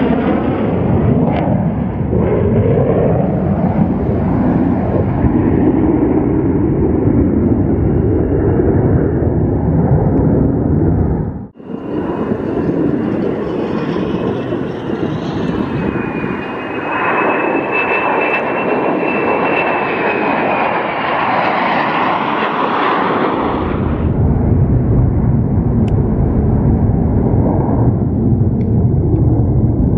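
F-35 fighter jets' Pratt & Whitney F135 turbofan engines running loud on landing approach, a dense roar. In the middle stretch a high whine stands out over the roar, and the sound changes abruptly twice where the footage is cut.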